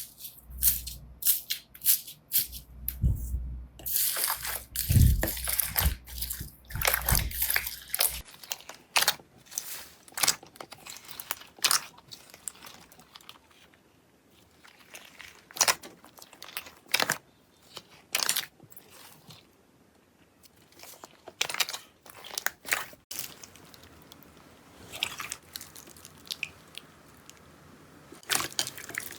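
Slime being squeezed and poked by hand: a long run of sticky crackles, pops and squishes, thicker for a few seconds early on and sparser with short pauses later.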